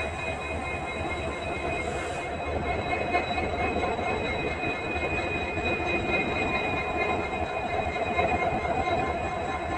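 Indian Railways WDP4D EMD diesel locomotive's two-stroke V16 engine running with a steady hum, with a low rumble underneath and thin, constant high-pitched whines on top.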